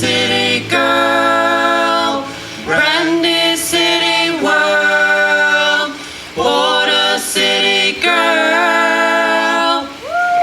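Several voices singing a cappella in harmony, holding long notes in phrases of about two seconds with short breaks between.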